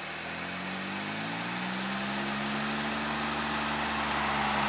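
John Deere Gator utility vehicle's engine running as it drives closer, its pitch rising a little in the first couple of seconds and then holding while the sound grows steadily louder.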